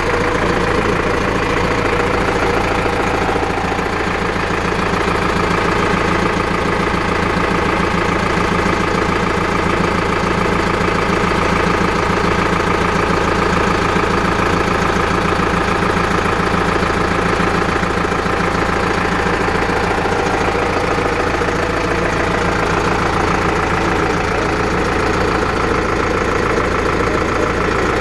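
Zetor Forterra 150 HD tractor's four-cylinder diesel engine idling steadily, heard from the rear of the tractor.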